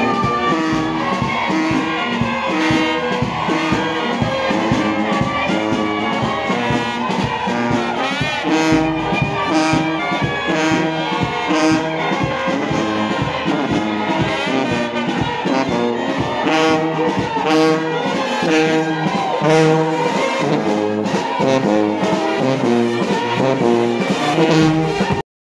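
Brass band music, horns playing a melody continuously, cutting off suddenly near the end.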